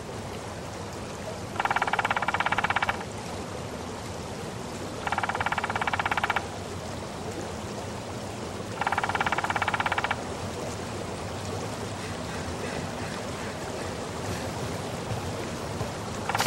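An electronic trilling buzzer sounding three times in bursts of about a second and a half, a few seconds apart, with another starting at the very end, over a steady hiss.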